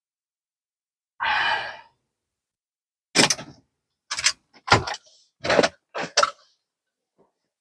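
A short creak or squeak, then five sharp knocks spread over about three seconds.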